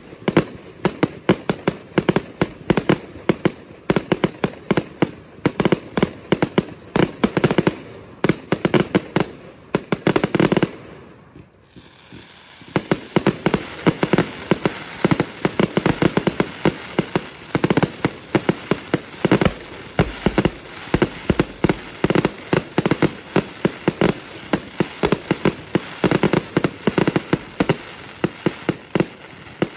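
Fireworks firing in quick volleys: shots launching from the ground and bursting overhead in a near-continuous string of sharp bangs, several a second. There is a brief lull about eleven seconds in, then the bangs start up again.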